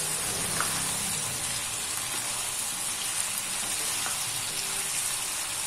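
Chicken karahi sizzling in a karahi (wok) as it is stirred and turned with a spatula: a steady frying hiss with a few faint clicks. This is the final bhuna stage, when the masala is fried down.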